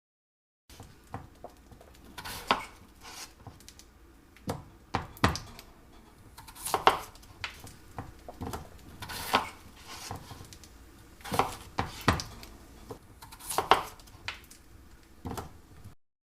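Irregular sharp knocks and clatter of kitchen utensils against a pan or chopping board, a strike every second or so, some much louder than others.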